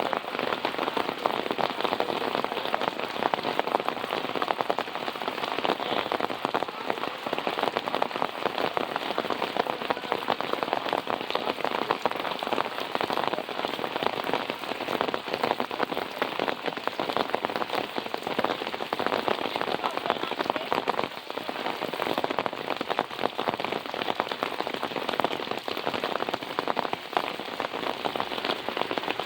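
Steady rain falling, a dense mass of individual drop hits at an even level with no let-up.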